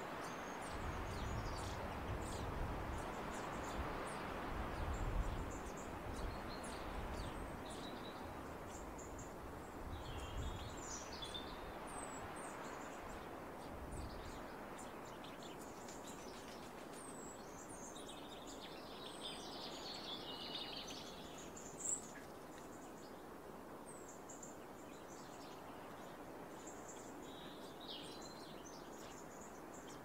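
Small songbirds chirping and calling: many short, high calls scattered throughout, with a denser phrase of song about two-thirds through. A steady rushing background noise has a low rumble in the first half. A single short tap a little past two-thirds through is the loudest moment.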